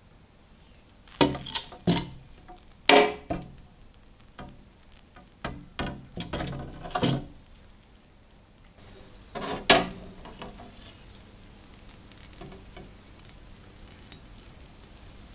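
A series of sharp clinks and knocks of hard objects being handled and set down, most of them in the first half, with a last short cluster about two-thirds through.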